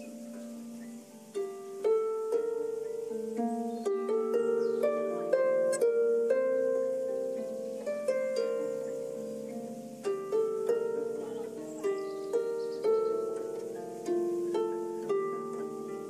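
Harp improvisation: single plucked notes ringing on and overlapping in a slow melody, with lower notes sounding beneath. Fresh plucks come in about a second and a half in, after a short stretch of notes left ringing.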